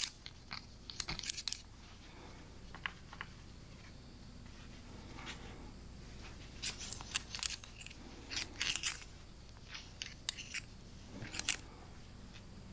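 Flux brush scraping and clicking against a copper pipe fitting as flux is spread inside and outside it, in uneven bursts of short scratchy, metallic strokes.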